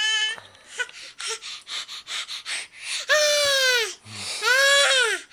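A one-year-old's happy, excited vocalising: a short squeal, a run of quick breathy huffs, then two long high squeals, each sliding down in pitch at the end.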